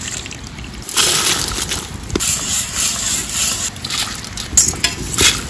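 Water sloshing and cowpeas rattling in a steel bowl as the beans are washed and scooped by hand, with wind buffeting the microphone and a couple of short knocks near the end.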